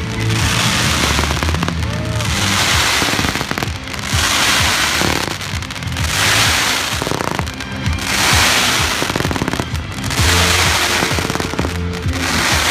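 Aerial fireworks crackling and bursting in repeated waves, a new surge about every two seconds, with music playing underneath.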